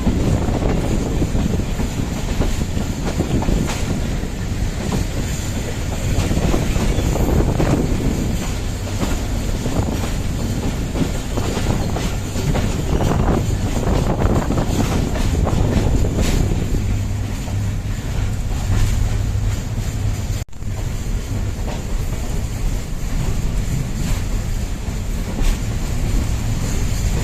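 Train running along the track: a steady rumble with the wheels clacking over rail joints. The sound cuts out for an instant about twenty seconds in.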